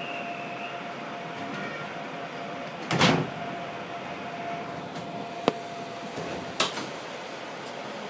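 Steady hum inside the cab of an Iyotetsu ex-Inokashira 3000 series train, with a faint steady tone. A heavy thump comes about three seconds in, a sharp click a couple of seconds later, and another knock about a second after that.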